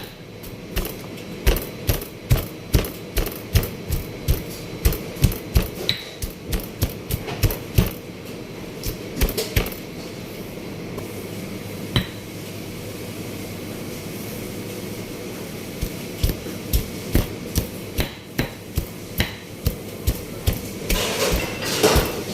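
Rhythmic knocking blows, about two a second, that stop for several seconds in the middle, with a single knock in the gap, then start again. It sounds like ingredients being pounded or chopped for a home remedy.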